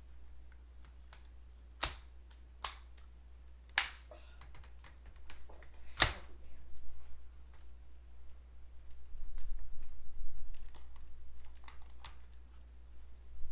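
Sharp plastic clicks and knocks of Shark Lift-Away vacuum cleaner parts being handled and fitted together, four louder clicks in the first half and a cluster of smaller knocks later.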